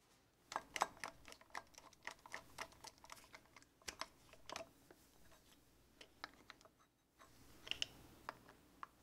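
Screwdriver-handled driver turning the cover bolts on a Volvo Penta seawater pump's impeller housing: a faint run of quick, uneven clicks and ticks. About five seconds in there is a pause of a couple of seconds, then a few more clicks near the end.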